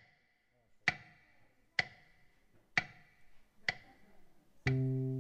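A sharp, steady click repeating about once a second, four times, like a count-in, then a piano chord comes in on the fifth click near the end and rings on.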